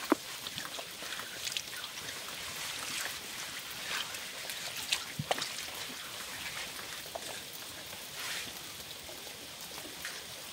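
Water poured from an aluminium canteen splashing onto a flat stone, then a hand rubbing the wet stone clean. Scattered light taps over a steady hiss.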